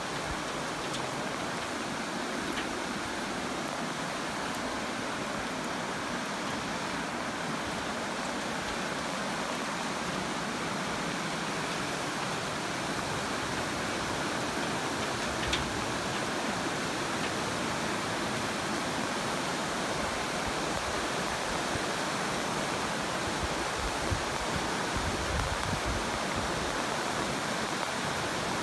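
Steady rush of a stream flowing below, an even hiss that holds at one level, with a faint click about halfway through and a few light knocks near the end.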